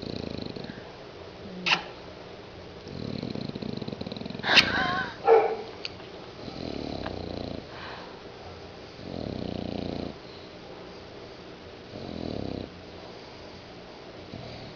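Bulldog snoring in its sleep: slow, even snores about every two and a half to three seconds, about five in all, with one louder snort about halfway through.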